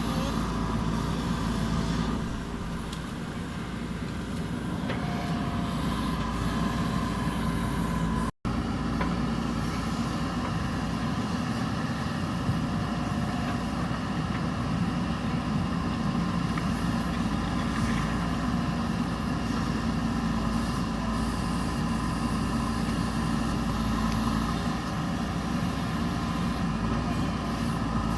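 JCB backhoe loader's diesel engine running steadily as the machine works, with a brief break in the sound about eight seconds in.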